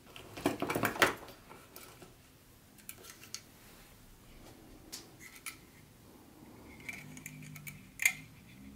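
HO-scale model train cars clicking and clattering as they are handled and set down, with a quick run of knocks about half a second to a second in and a single sharp click near the end.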